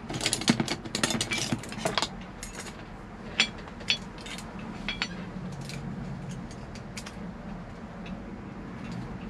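Clicks and rattles of a truck's gear shift knob and its air hoses being handled and fitted onto the shift lever. They are busiest in the first two seconds, then come as scattered single clicks, over a steady low hum.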